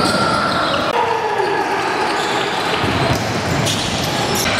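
Basketball game sounds: a basketball bouncing on the court, with voices of players and spectators mixed in.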